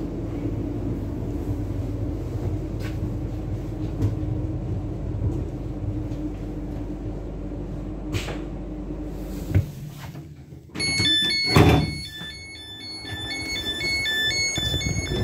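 Class 484 electric train interior with a steady hum as it runs slowly into the station, which dies away about ten seconds in as it stops. The door-release warning follows as a rapid pattern of electronic beeps, and the passenger sliding door opens with a loud clunk about twelve seconds in.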